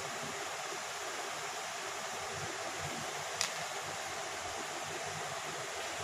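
Steady hiss of background noise, with one short click a little past the middle.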